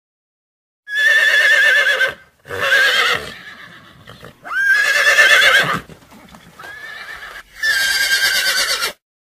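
Horse neighing: about five whinnies in a row, each about a second long with a wavering, shaking pitch, starting about a second in, the fourth one quieter.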